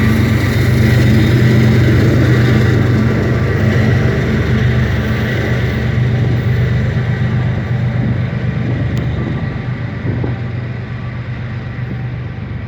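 Diesel-electric freight locomotive running steadily under power, a low engine drone with a thin high whine above it, slowly fading as it moves away.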